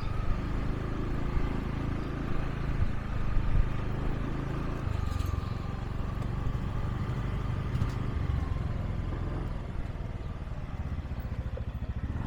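Motorbike engine running steadily while riding along a road.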